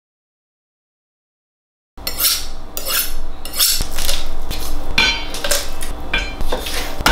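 Silence for about two seconds, then a knife cutting and hands pulling apart a whole raw chicken on a wooden cutting board: a quick run of sharp clicks, knocks and crackling.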